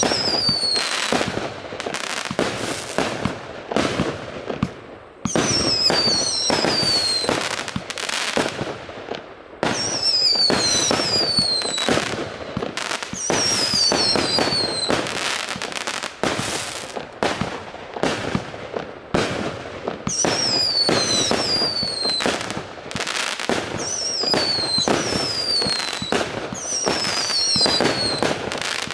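A 99-shot consumer firework cake ("Перчики") firing a rapid, unbroken stream of shots and crackling bursts. Groups of whistles falling in pitch recur about every four seconds.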